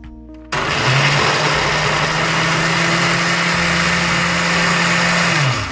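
Countertop blender motor switching on about half a second in and running at speed, blending habanero pepper and carrot sauce, then winding down with a falling hum just before the end.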